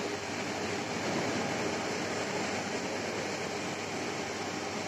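Steady hum and hiss of running machinery and fans.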